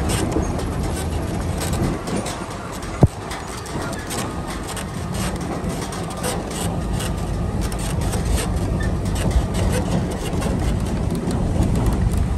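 4225C truck's diesel engine running steadily on the move, with frequent rattles and one sharp click about three seconds in.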